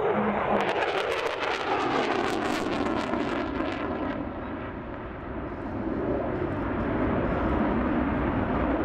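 F-16 fighter jet's engine roaring as it flies past. The pitch falls over the first couple of seconds, with crackling in the first few seconds, then it settles into a steady roar.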